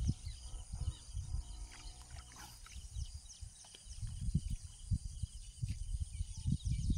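Wind buffeting the microphone in irregular low gusts, strongest in the second half. Behind it, birds chirp in short calls over a steady high insect drone.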